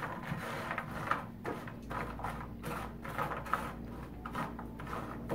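Buttered pecan halves being stirred with a silicone spatula in a cooking dish: irregular small clicks and scrapes as the nuts knock against each other and the pan.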